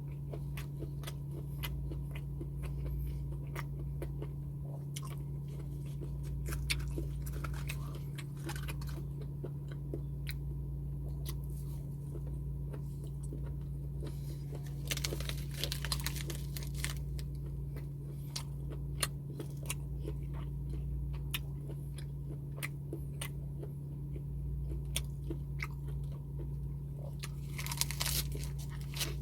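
Close-miked chewing and biting of crunchy food, with many short crisp crunches, over a steady low hum.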